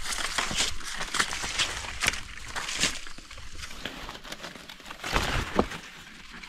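Footsteps and rustling on the forest floor: leaf litter and undergrowth crackling irregularly underfoot and under hand, with a louder rustle about five seconds in.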